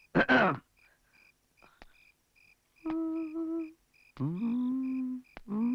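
A man humming a few short notes with his mouth closed, in three brief phrases, the second rising into a held note. A short falling vocal sound comes right at the start. Crickets chirp in a regular rhythm underneath.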